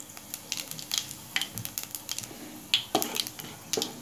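Whole spices (cumin seeds and whole garam masala) crackling and sizzling in hot mustard oil as they temper, with scattered sharp pops throughout. A few louder knocks come from a wooden spatula stirring in the pan near the end.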